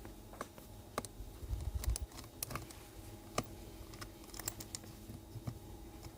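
Scattered faint clicks and light taps, with a short low knock a little under two seconds in: small tools and metal parts handled against the open laptop's internals during reassembly.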